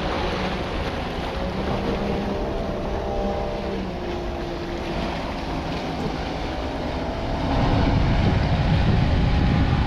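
Small fishing boat's engine running at speed as the boat passes, a steady drone that grows louder about three quarters of the way through as it comes closer. Wind rumbles on the microphone underneath.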